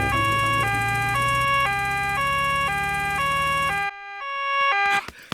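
Cartoon ambulance two-tone siren going nee-naw, high and low notes alternating about twice a second, over a low steady hum that stops about four seconds in. The siren stops near the end.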